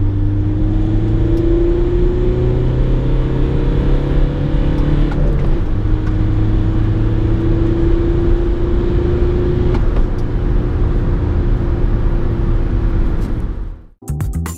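Volkswagen Caddy 2.0 TDI four-cylinder turbodiesel under full acceleration, heard from inside the cabin. The engine note climbs steadily, drops with a gear change about five seconds in, then climbs again. The sound cuts off just before the end.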